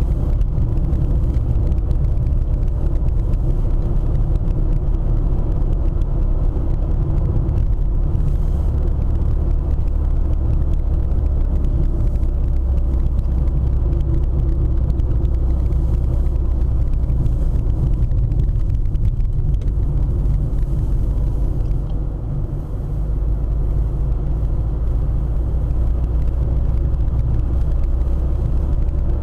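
Mercedes-Benz car driving at a steady speed, its engine and tyre noise heard from inside the cabin as a continuous low rumble. The rumble eases briefly about three-quarters of the way through.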